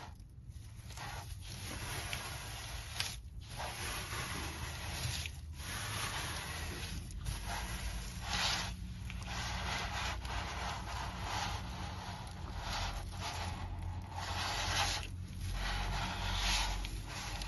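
Hands brushing across the blades of an artificial grass sample: a scratchy rustling in repeated strokes, broken by brief pauses every second or two.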